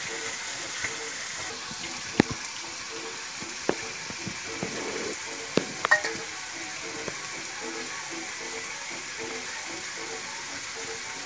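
Boiled eggs frying in hot oil in a wok, a steady sizzle. A few sharp knocks come in the middle, one with a short metallic ring, as steel bowls are handled.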